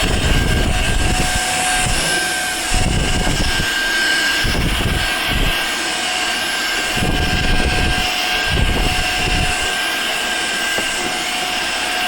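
Cordless 2-in-1 electric air duster and vacuum running, its high-speed fan motor giving a steady high whine over a rush of air, with irregular low rumbles throughout.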